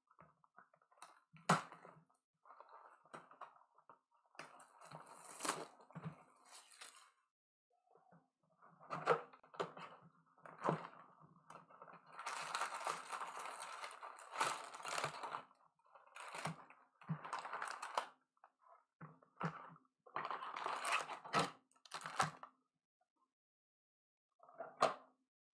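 Hands unwrapping and opening a cardboard box of trading cards and pulling out the packs: crinkling wrapper, cardboard scraping and light clicks and taps in short, irregular bursts.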